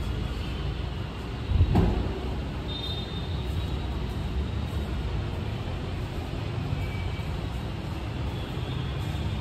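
A car door being shut: one heavy thud about two seconds in, over a steady low rumble.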